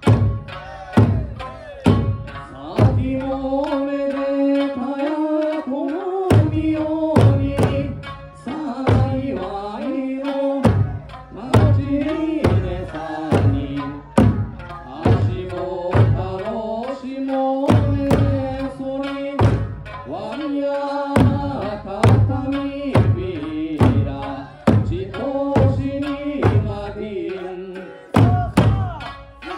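Okinawan eisa performance: large barrel drums (ōdaiko) struck hard on a steady beat, under a folk-song melody with sustained, sliding sung notes.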